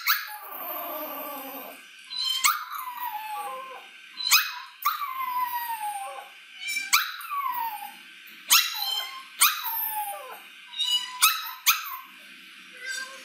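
Pomeranian puppy howling: a string of short, yelping howls, each one starting high and sliding down in pitch, repeated every second or two.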